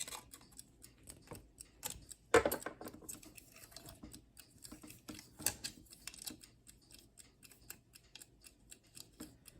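Westclox alarm clock's mechanical movement ticking steadily and quickly: the repaired clock is running. A louder knock comes about two and a half seconds in, and a smaller one near five and a half seconds, from the plastic case being handled.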